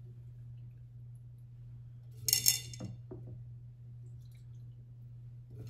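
Water splashing and glass clinking as hands work at the mouth of a tall water-filled glass vase: one loud splash-and-clink a little over two seconds in, then a couple of light taps. A steady low hum underlies it.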